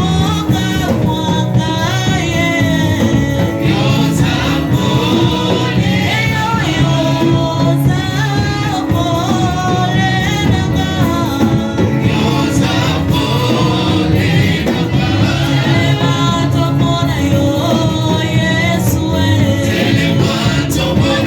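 Gospel music: voices singing a melody together over instrumental backing, loud and continuous.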